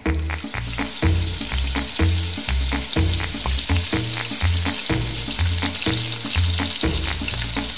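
Frying sizzle sound effect, a steady hiss that switches on abruptly at the start, laid over background music with a repeating bass line. It is dubbed in to stand for cooking in a clay wok.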